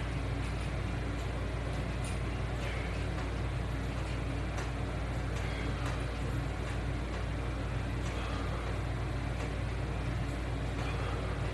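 Steady low background hum with an even hiss over it and a few faint, brief clicks.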